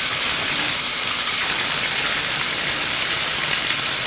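Shower spray running steadily into a bathtub, a continuous hiss of water hitting the tub wall and the bath water.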